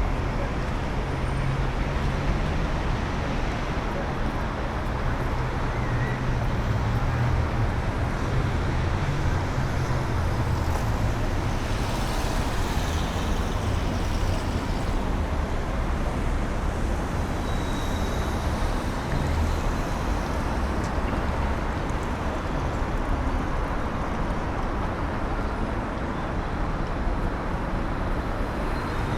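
Busy city street ambience: steady road traffic running past, a continuous rumble with no sudden events.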